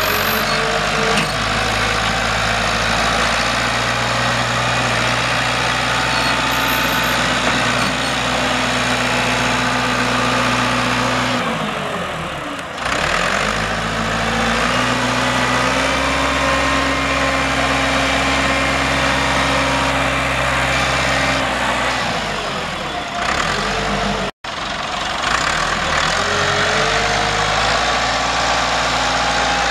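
Perkins A4.248 four-cylinder diesel of a Massey-Ferguson 50EX loader tractor running steadily as the tractor drives. The engine speed sags and picks back up about twelve seconds in, changes again about two-thirds through, and the sound cuts out for an instant just after.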